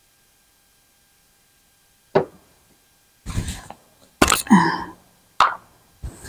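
Nearly silent at first, then a few sharp knocks and clicks as a wooden strip and a plastic glue bottle are handled. About four and a half seconds in comes a short wet sputter as wood glue is squeezed out of the bottle in dollops.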